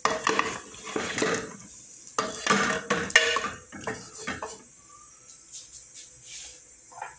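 Wooden spoon stirring and scraping meat and sliced sausage around an aluminium pressure-cooker pot, with knocks against the pot's sides, in two bursts that die down after about four seconds.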